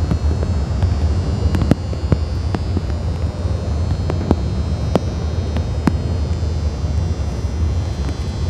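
Steady low rumble of an idling SUV engine, with scattered sharp ticks over it.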